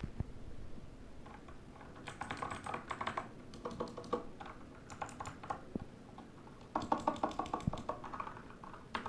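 Typing on a mechanical keyboard with clicky Outemu Blue switches: quick runs of sharp key clicks, with short pauses about a second in and around six seconds in.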